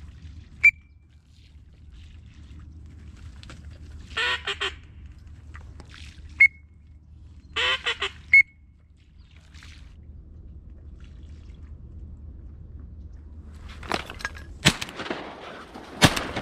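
Duck quacking in two short runs about three seconds apart, with a few single sharp whistle peeps in between. Near the end come several sharp knocks and a rush of noise.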